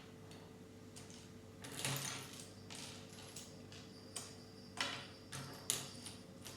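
Plastic Lego pieces being handled, making a scatter of light clicks and rattles, with a short rustle about two seconds in and a few sharper clicks later on. A faint steady hum runs underneath.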